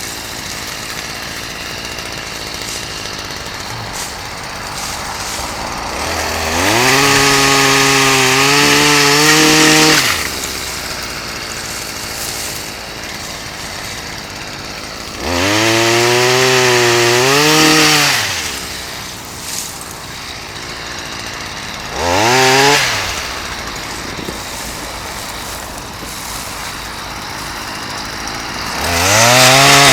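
Two-stroke chainsaw idling, revved up to full throttle four times for cuts, for a few seconds each. The pitch wavers while it runs high.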